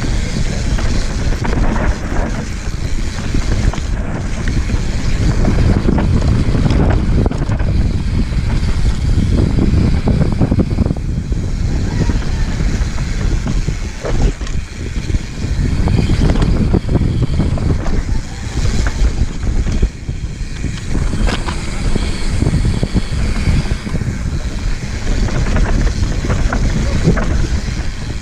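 Wind buffeting the GoPro Session 5's microphone on a fast mountain-bike descent, over the rolling of the Santa Cruz Megatower's tyres on dry dirt, with frequent clicks and rattles from the bike over bumps.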